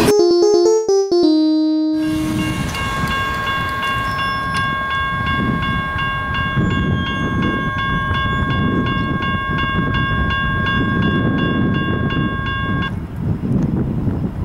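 A music track's last piano-like notes end about two seconds in. A railroad crossing warning bell then rings at about two strokes a second over a low rumble, and stops suddenly near the end as the crossing gate arm finishes rising, clearing the crossing.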